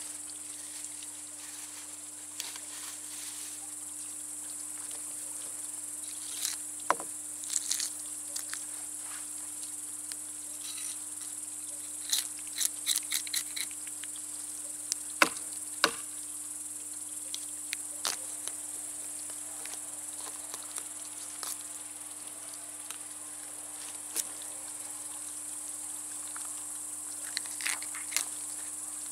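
A steady high-pitched insect chorus, with scattered short clicks, taps and scrapes of a knife on a wooden board as crucian carp are scaled and gutted.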